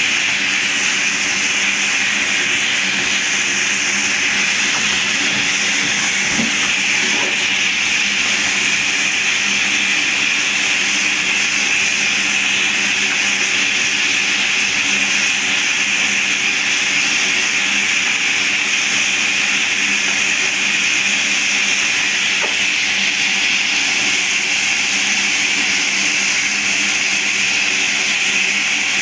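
Water running and spreading across a flat surface, a constant hiss with a faint low hum beneath it.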